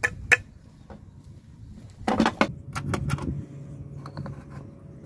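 Handling noises of wood and metal: sharp knocks of wooden blocks and a metal combination square being handled and set down on a table saw's steel top, with a cluster of rapid clicks and scrapes about two seconds in.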